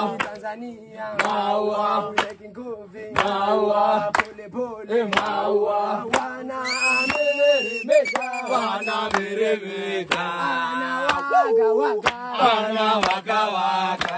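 A group of voices chanting a song over a steady beat. About halfway through, one high, shrill note rises and holds for about a second.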